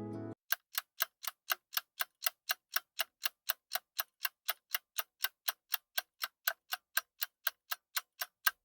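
Mechanical mantel clock movement ticking steadily at about four ticks a second, with an even, regular beat. Short guitar music cuts off just before the ticking starts.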